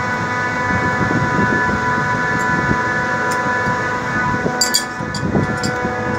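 Running chiller machinery giving a steady whine made of several tones over a mechanical hum. A few sharp metallic clicks come about two-thirds of the way in and again near the end.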